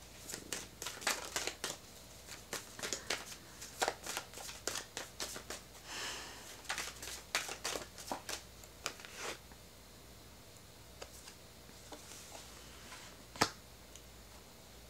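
Tarot deck being shuffled by hand, a rapid run of card clicks and snaps for about nine seconds, then a few soft clicks and one sharper snap near the end as a card is drawn and laid down.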